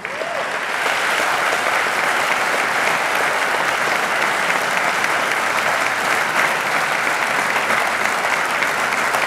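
A large seated audience applauding. The clapping swells up within the first second and then holds steady and dense.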